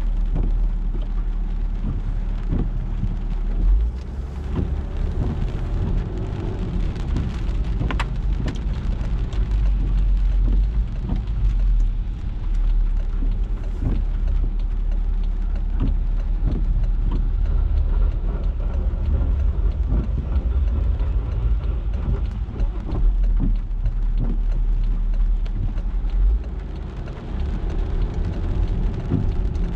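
A car driving in the rain: many small raindrop ticks on the car over a steady low rumble of engine and tyres on the wet road.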